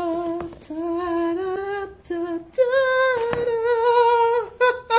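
A man's voice singing long, held, high 'aah' notes in excitement, stepping up to a higher note about halfway through. A few light clicks of the phone box being handled.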